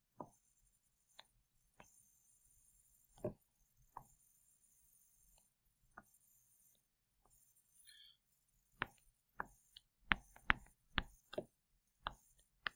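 Faint clicks and taps of a pen or stylus on a drawing tablet during handwriting. They are sparse at first, then come faster and louder over the last four seconds.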